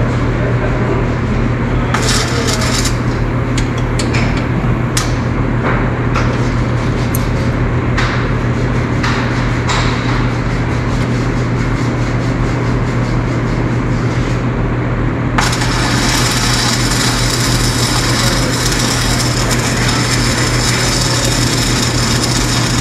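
Metalwork on steel tail-hinge brackets during welding: scattered clinks and knocks of metal over a steady low hum. About fifteen seconds in, a continuous harsh hiss starts suddenly and carries on.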